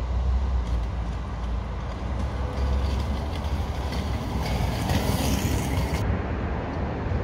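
Low rumbling outdoor street noise, with a louder rushing hiss for about a second and a half past the middle that cuts off abruptly.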